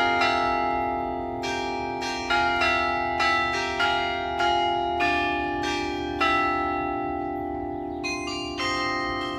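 Carillon bells of the New Ulm Glockenspiel clock tower playing a slow tune: single struck notes, about one or two a second, each ringing on under the next.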